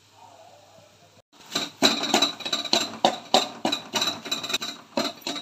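Metal spatula clattering and scraping against a steel kadai in quick repeated strikes, about three a second, as an egg is broken up and stirred into fried beans. The strikes begin about a second in, after a short quiet spell.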